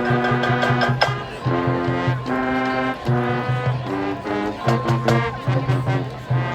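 Marching band playing: brass chords over a pulsing line of repeated low notes, with sharp percussion hits.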